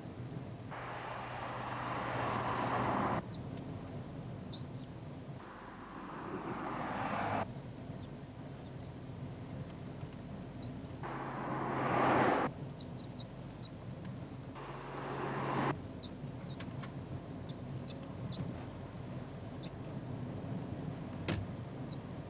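Short high-pitched squeaks, the mystery squeak in a Volkswagen, come in little clusters again and again over car running noise. The car noise swells and cuts off abruptly several times. A single sharp click comes about a second before the end.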